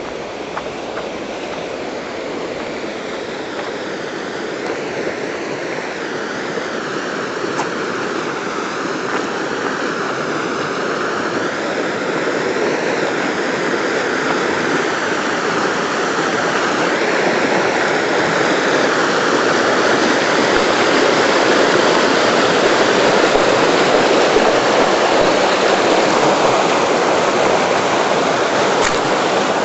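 Running water of a stream, a steady rush that grows gradually louder.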